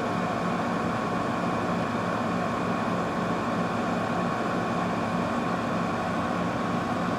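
Fedders-made Everstar window air conditioner running on high fan with its LG compressor on: a steady rush of air and hum with a thin, even whine. It runs quietly, without the rattle of a window shaker.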